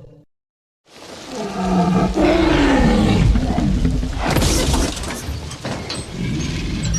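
Film sound effect of a Tyrannosaurus rex roaring: after a brief silence a deep roar swells up about a second in, its pitched bellow falling, with a harsher, rasping burst past the middle.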